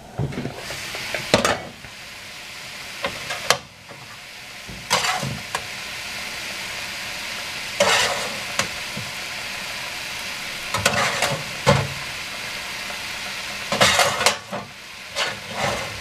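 Chicken and vegetable stir-fry sizzling steadily in a cast-iron skillet once the lid comes off near the start. Several short scrapes and clatters of a metal spatula stirring the food in the pan.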